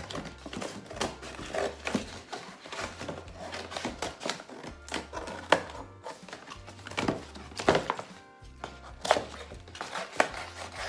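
Paper gift bag being handled and cut with scissors: irregular rustles, snips and knocks against the table, over background music.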